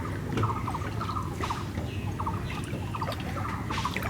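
Splashing in shallow floodwater, a few sharp strokes, over a short pulsed animal call that repeats about twice a second.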